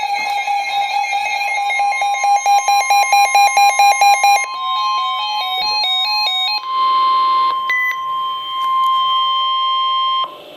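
Emergency Alert System tones: a steady electronic tone that turns into rapid pulsing beeps, then a short run of notes stepping up and down in pitch, then a long steady tone of about 1 kHz that cuts off shortly before the end.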